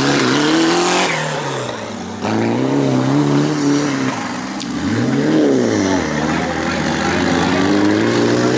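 Off-road buggy engine revving up and down over and over, its pitch rising and falling every second or two; the sound jumps abruptly louder about two seconds in.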